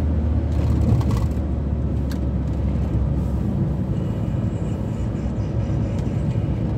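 Steady engine drone and road noise heard inside the cab of a VW T4 van driving along.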